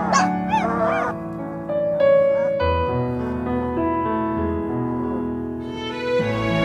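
Slow piano music with held notes. Over its first second, Alaskan Malamute puppies are heard howling and whining in wavering, gliding cries that then stop.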